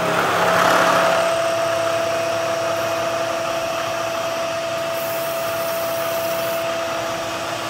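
CNC milling machine spindle driving a face mill through a heavy cut at 2,000 RPM, with a steady high hum and a lower tone that joins about a second in over the hiss of the cut. The spindle motor is at or a little over its full load yet running smoothly.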